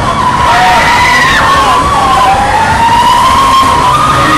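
Riders on a swinging and spinning thrill ride screaming: several long, wavering screams overlap and glide up and down in pitch over a low rumble.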